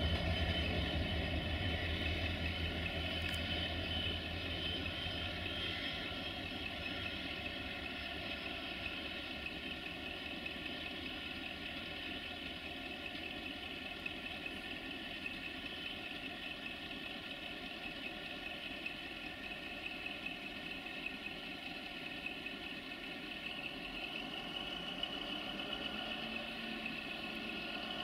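GM class 64 diesel-electric locomotive's engine running steadily as it moves slowly away. Its deep hum fades over the first several seconds, then the engine holds at a lower, even level.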